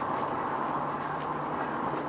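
Torrential rain pouring steadily, with a few sharper drips or splashes standing out.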